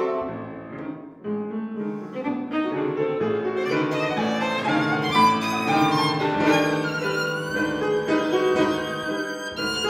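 Violin and grand piano playing classical music together. The violin carries the line in sustained bowed notes with vibrato, over piano accompaniment, after a brief softer moment about a second in.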